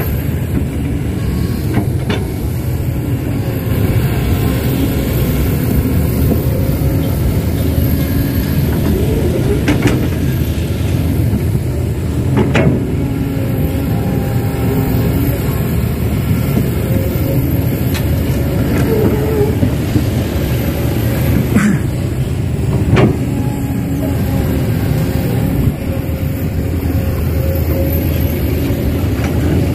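Heavy diesel machinery running steadily, an excavator and dump trucks at work, with a few sharp knocks or clanks now and then.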